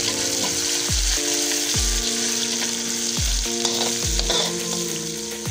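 Sliced shallots and garlic sizzling as they sauté in a little hot oil in a wok, stirred with a spatula. Background music with a steady beat plays underneath.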